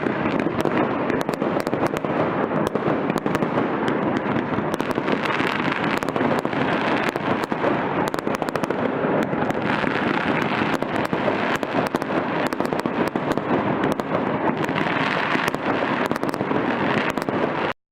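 New Year fireworks going off in a dense, continuous barrage of many overlapping bangs and crackles, cutting off suddenly near the end.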